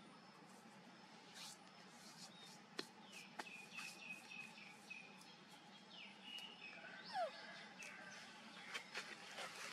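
Faint, scattered high chirping calls and sharp clicks over quiet outdoor background noise.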